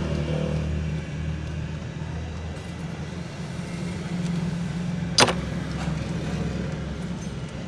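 A steady low mechanical hum, with one sharp metallic clink of a hand tool about five seconds in.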